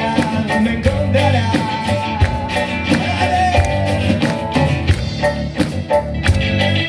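Live band playing an instrumental passage of a ska-reggae song: electric guitar, drum kit and keyboard over a steady beat.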